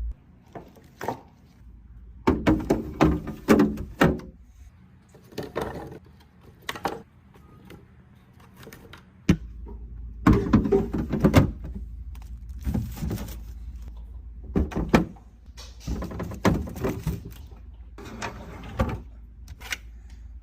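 Containers and packages being handled and set into a refrigerator: repeated clacks and thunks, some single, some in quick clusters of clatter.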